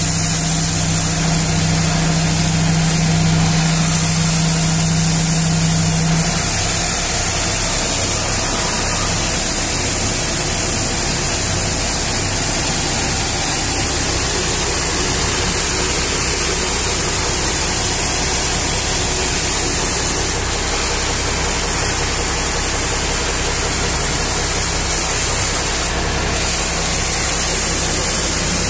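A high-pressure water jet from a thick hose hissing steadily as it blasts a mining dump truck's tyres and wheel, over a steadily running engine. A low hum with a slow pulse under it drops away about six seconds in.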